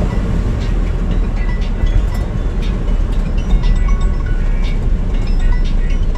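Toyota Innova cruising at about 100 km/h, heard as a steady low road and drivetrain rumble, with music playing over it.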